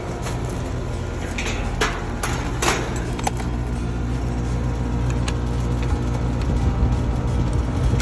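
Lennox outdoor air-conditioning condenser unit running with a steady low hum, with a few sharp clicks of hose fittings and gauges being handled in the first three seconds.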